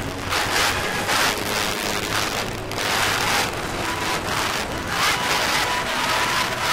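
Live band playing loud in a small club, heard through an overloaded camera microphone as a distorted, hissy wash with surges that sound like cymbal crashes.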